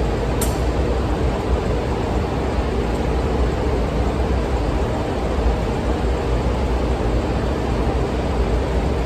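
Steady machinery noise of a ship's engine room: a constant low rumble with an even rush over it. One short click comes about half a second in.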